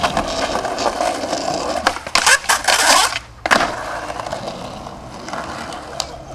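Skateboard wheels rolling over paving slabs, with a harsh scraping clatter about two seconds in. A brief hush follows, then one sharp board smack just past halfway, and the rolling continues more quietly.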